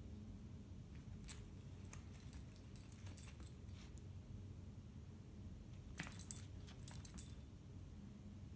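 A small dog's collar tags jingling in a few short bursts as it moves, the loudest cluster about six to seven seconds in.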